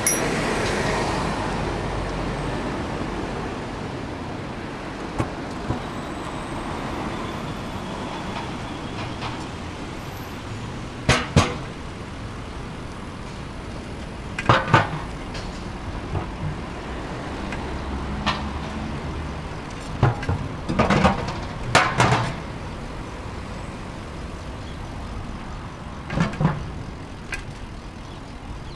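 Steady road traffic with a bus close by, loudest as it pulls away near the start. A handful of short, sharp sounds come at irregular intervals over the traffic.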